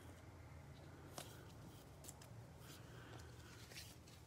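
Near silence with a low room hum, broken by a few faint, soft rustles and ticks of a glossy trading card and a plastic card sleeve being handled with nitrile-gloved hands.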